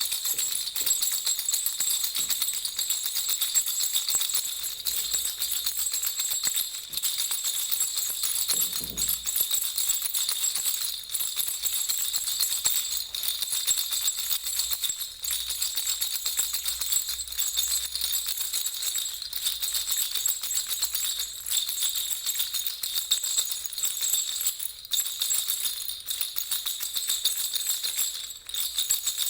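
Baby rattle (jhunjhuna) shaken without a break, giving a steady, bright, high jingling.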